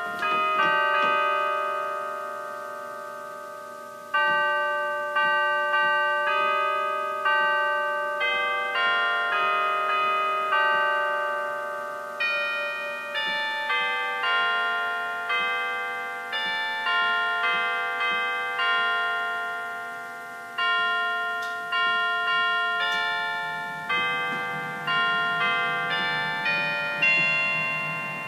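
Slow instrumental music of struck, bell-like notes, each ringing out and fading before the next, playing a gentle melody.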